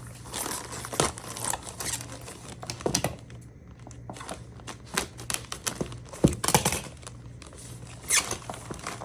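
Packaging crinkling and rustling in irregular bursts as items are handled and torn open.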